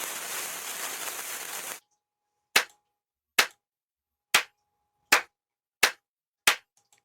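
Soundboard sound effect played back: a steady hiss cuts off abruptly about two seconds in. Then six sharp gunshot-like cracks follow, each under a second apart, with dead silence between them.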